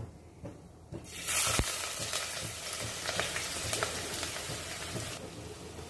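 Chopped onions hitting hot groundnut oil in a clay pot and sizzling, starting suddenly about a second in and staying steady, easing a little near the end.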